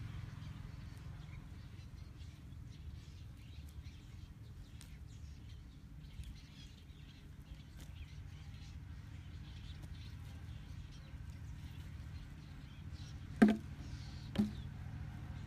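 Faint scratching and ticking of bare hands digging in wet soil over a low steady outdoor rumble. Near the end come two short loud sounds about a second apart, the first louder.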